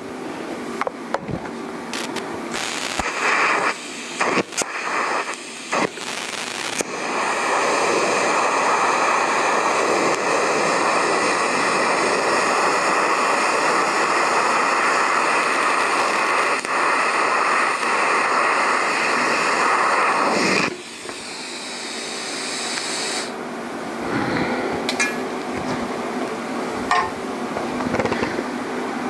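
Electric arc welding: a few short bursts of arc, then one continuous weld run for about fourteen seconds that cuts off sharply, followed by faint clicks and shop noise.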